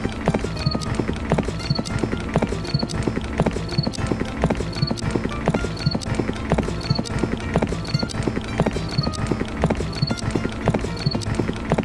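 Hooves clip-clopping at a steady walking pace, a dubbed hoofbeat sound effect for a toy animal-drawn cart. A short high ring recurs regularly in time with the steps.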